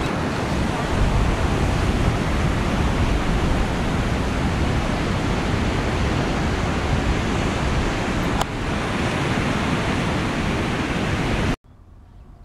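Strong wind buffeting the microphone over ocean surf, a loud steady rushing hiss with a fluttering low rumble. It drops off suddenly near the end to a much quieter background.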